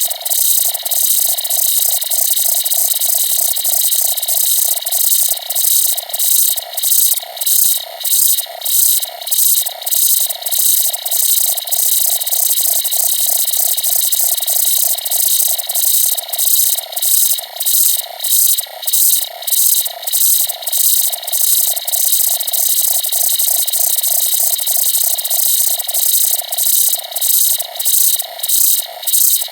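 Synthesized sci-fi UFO communication sound effect: an electronic signal pulsing in a fast, even rhythm, with a hissy high band over it.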